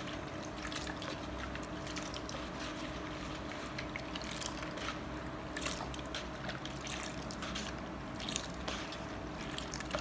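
A hand stirring shampoo into water in a plastic mug, with soft irregular sloshing and splashing as the shampoo foams up. A faint steady hum sits underneath.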